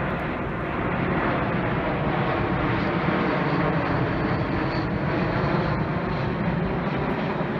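Jet airliner with two tail-mounted engines, McDonnell Douglas MD-80-family style, flying low overhead on its landing approach. Its jet noise is a steady, full rumble.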